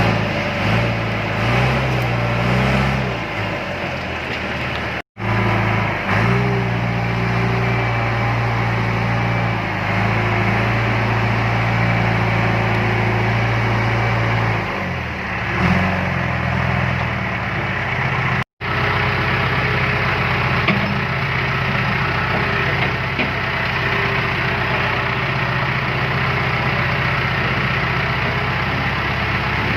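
Diesel engines of a backhoe loader and a farm tractor running steadily, their pitch shifting up and down a few times as they work. The sound cuts out abruptly for an instant twice.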